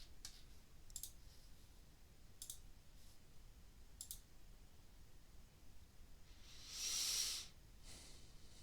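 Faint computer clicks: three single clicks about a second and a half apart, then a short soft hiss about seven seconds in.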